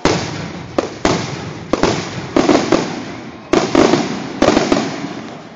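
Fireworks display: a run of about six loud aerial shell bursts, each a sharp bang that dies away, coming roughly one a second.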